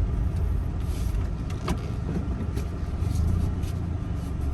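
Steady low rumble of a motor vehicle, with a few faint ticks over it.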